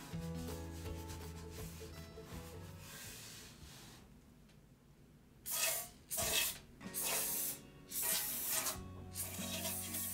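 Background music, then from about halfway in roughly six rasping strokes of a bread knife sawing through a baked sandwich loaf.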